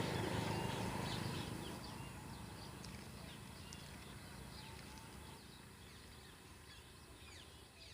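A low rumble fades away over the first two seconds, then many small birds keep up a run of short, quick chirps that drop in pitch.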